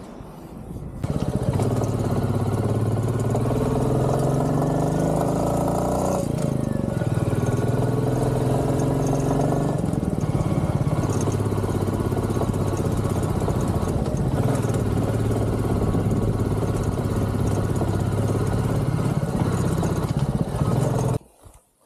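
Motorcycle engine running under way, its pitch rising and falling in long glides as the throttle and gears change, over a steady rushing noise. It starts about a second in and cuts off abruptly near the end.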